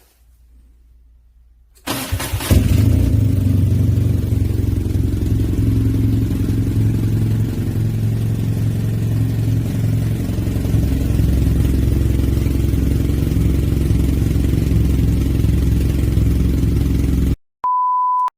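BMW R nineT Scrambler's air/oil-cooled boxer twin starting about two seconds in, then idling steadily before cutting off abruptly near the end. A short steady beep follows.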